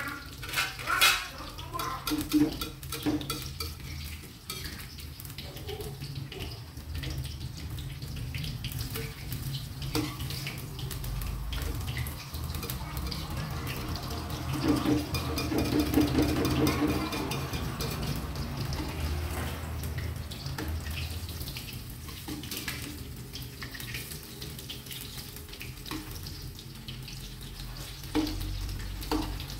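Food frying in a metal wok on a gas stove, stirred and scraped with a metal spatula: a run of clinks and scrapes of metal on metal over a steady sizzle, busiest about halfway through.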